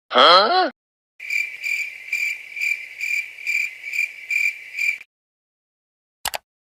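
A short voiced "huh?", then a cricket chirp sound effect, the "krik krik krik" awkward-silence meme, pulsing about twice a second for nearly four seconds. Near the end comes a single brief click, a mouse-click sound effect.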